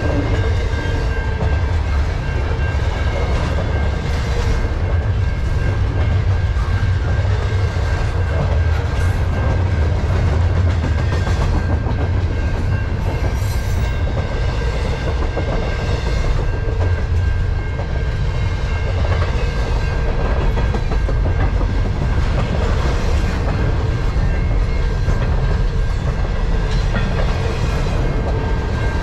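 Double-stack intermodal freight train rolling past close by: a steady deep rumble of the wheels and cars on the rails, with a steady high tone over it.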